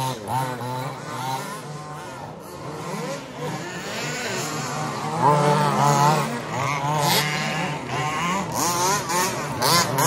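Radio-controlled racing buggies running on a dirt track, their motors whining in pitches that keep rising and falling with the throttle as several cars pass and overlap.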